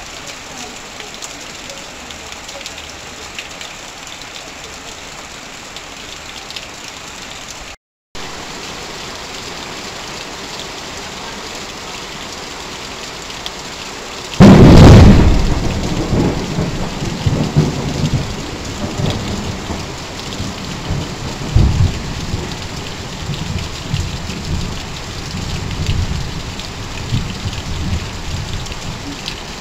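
Heavy rain falling steadily on corrugated-iron sheeting and pouring off a roof edge. About halfway through, a sudden loud thunderclap is followed by long, uneven rolling rumbles. The sound cuts out for a moment about eight seconds in.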